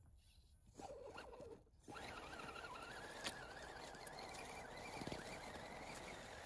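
Electric motor and gearbox of an RC scale crawler whining as it drives through snow. The whine wavers and rises a little from about two seconds in, after a nearly quiet start broken by a short burst.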